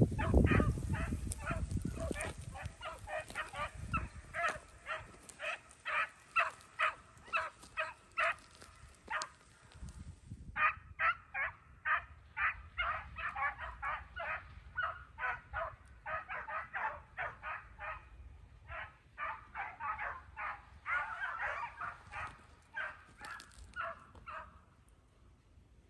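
A pack of beagles baying as they run a rabbit's trail: short, repeated, overlapping calls a few times a second, with a brief break about ten seconds in. A low rumble on the microphone at the very start.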